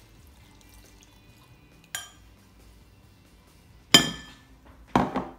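Pickling liquid poured faintly from a jug over mushrooms in a glass bowl, with a light clink of glass about two seconds in. Near the end, two louder clinks against the glass bowl as a metal jug pours over its rim, each ringing briefly.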